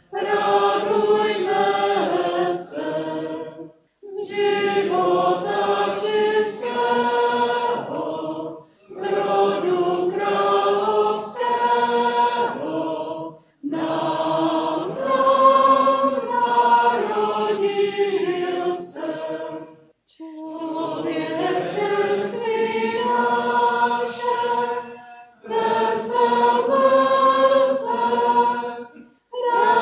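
Congregation singing a hymn together in phrases of about four to six seconds, each followed by a brief pause for breath.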